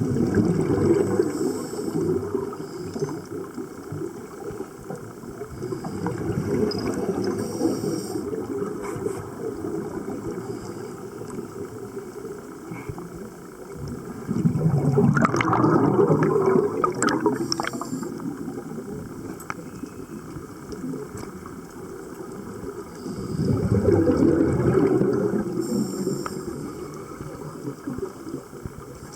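Scuba exhalation bubbles heard underwater: a diver breathing out through the regulator, a bubbling rumble that swells four times, several seconds apart, between quieter stretches of water noise.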